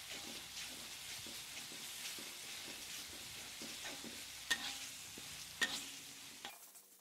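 Ground white spice paste of shallots, garlic and candlenut sizzling as it fries in a little oil in a wok, stirred with a spatula. Two sharper clacks of the spatula on the wok come about four and a half and five and a half seconds in, and the sizzle fades out shortly before the end.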